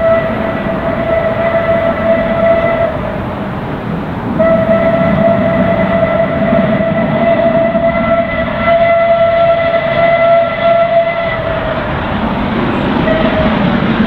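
Steam locomotive whistle sounding at a steady pitch in three blasts: one that cuts off about three seconds in, a long one of about seven seconds, and a short toot near the end.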